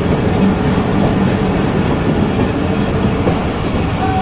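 Steady rumble and rattle of a moving passenger train, its coach wheels running over the rails, heard from the coach's open doorway.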